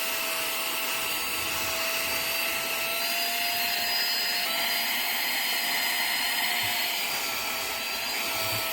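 Mini handheld car vacuum running steadily, a high motor whine over a rush of air, as it sucks up spilled glitter; the pitch shifts slightly a few times as it works.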